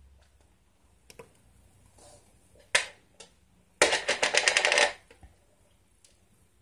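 Off-camera handling of a mealworm container: one sharp click, then about a second of fast rattling clicks, roughly ten a second.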